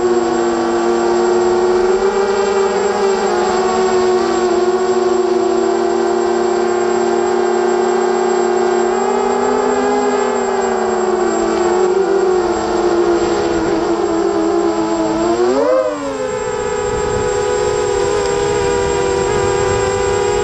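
FPV quadcopter's electric motors and propellers whining at a fairly steady pitch, heard through the drone's onboard camera, with a quick sharp rise and fall in pitch about sixteen seconds in.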